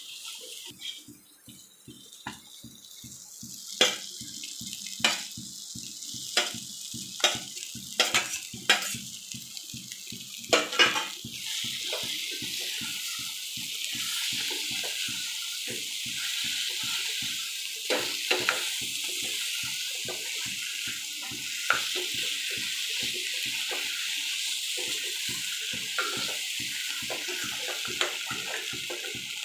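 Spatula stirring prawn masala in a nonstick pan: a string of sharp knocks and scrapes against the pan through the first half, then a steady sizzle from about the middle as the prawns fry, with a few more knocks. A faint low pulse repeats about two to three times a second throughout.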